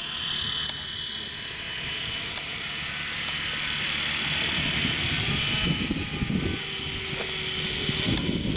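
Align T-Rex 700 nitro radio-controlled helicopter in flight: its glow engine whining steadily along with the whoosh of the rotor blades.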